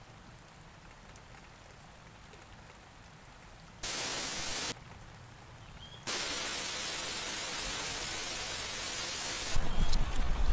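Faint rain-like hiss, broken by two sudden bursts of static-like white noise that switch on and off abruptly: a short one about four seconds in and a longer one of about three and a half seconds after it. A low rumble comes in near the end.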